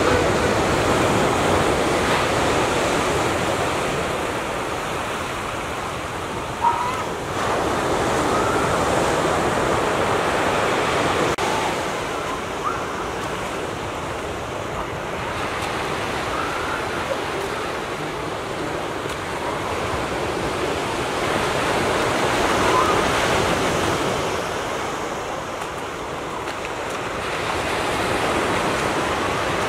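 Ocean water washing against a rocky shore, swelling and easing in slow surges, with a few brief faint calls over it.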